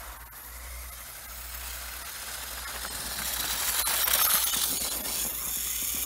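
RC buggy's motor and drivetrain running as it drives across icy, snow-covered pavement, growing louder to a peak as it passes close about four seconds in, then fading.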